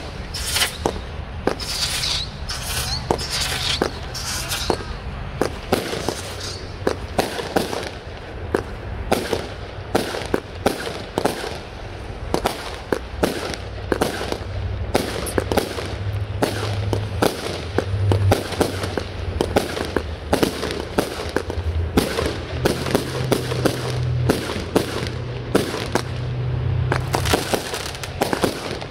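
Consumer aerial fireworks going off in rapid succession: sharp bangs about every second, with crackling between them.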